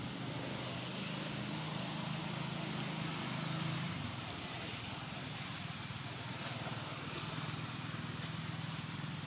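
Steady low hum of a motor vehicle engine running, with an even hiss over it.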